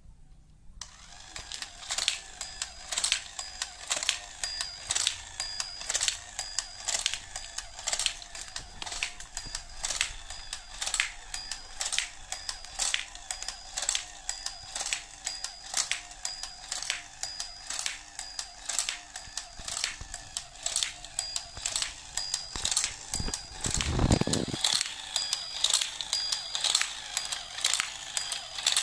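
Battery-powered toy domino train switched on and running: its small motor whirs steadily under a regular rhythm of clicks as it drops dominoes one by one from its tower. A louder dull thump comes late on.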